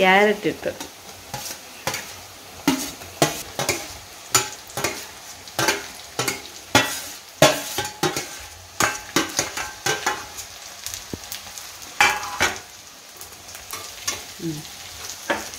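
Sliced onions and carrots sizzling in oil in an aluminium kadai, while a spatula and the steel plate scrape and knock against the pan in quick, irregular strokes.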